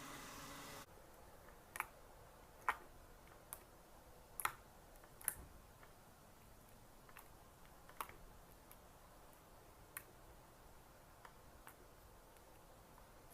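Homemade slime being played with for ASMR: faint, irregular sharp clicks and pops, about a dozen scattered through, as the slime is pressed and stretched.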